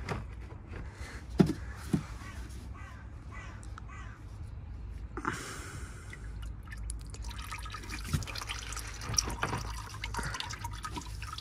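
Old engine oil dripping and trickling from a loosened spin-on oil filter into a drain container, as scattered small drips. There are two sharp knocks about one and a half and two seconds in.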